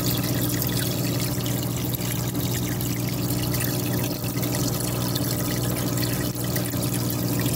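Water trickling and splashing steadily into a fish tub, over a steady low hum.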